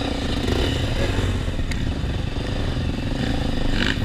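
Single-cylinder four-stroke engine of a Honda XR 250 Tornado trail motorcycle running at low revs, its pitch wavering slightly, with one small click about halfway through.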